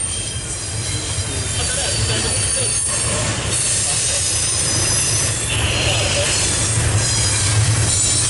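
Double-stack intermodal container cars of a CSX freight train rolling past on the rails: a steady, loud low rumble of wheels on track with faint high-pitched wheel squeal.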